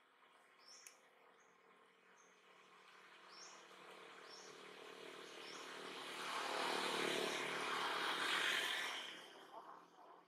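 A vehicle passing by, its noise building slowly over several seconds, peaking near the end and then falling away quickly. A small bird chirps repeatedly throughout.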